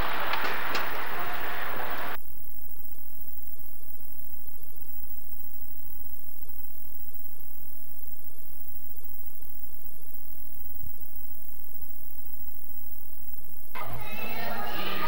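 Blank section of videotape: a steady faint hum of several even tones over a constant high hiss. It is framed by a couple of seconds of ice-rink noise at the start and music coming in about fourteen seconds in.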